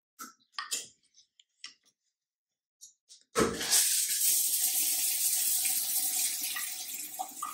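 A few light clicks and knocks, then a shower is turned on a little over three seconds in: water sprays steadily from a handheld shower head onto the tiles of the shower stall.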